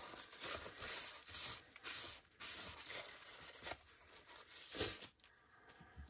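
Faint, irregular rustling and rubbing of paper being handled and pressed by hand, with a louder rustle about five seconds in.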